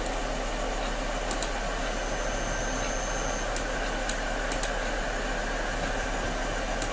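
Steady background hiss with a low mains hum, broken by about seven sharp computer mouse clicks spread through, two of them in quick pairs.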